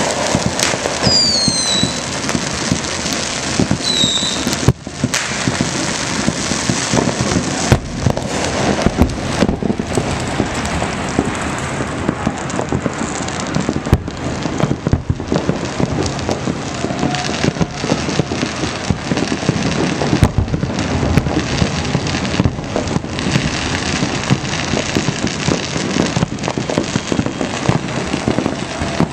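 Many firecrackers and fireworks going off at once, near and far, in a dense, unbroken crackle of pops and bangs. A few short, high, falling whistles cut through it in the first few seconds.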